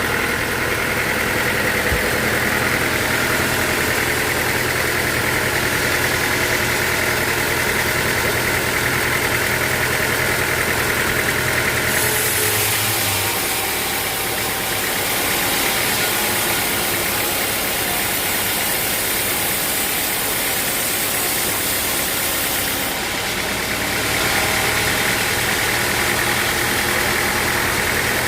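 Sawmill machinery running with a steady motor drone and a high whine. About twelve seconds in, a harsher high hiss joins it for roughly ten seconds, then drops away.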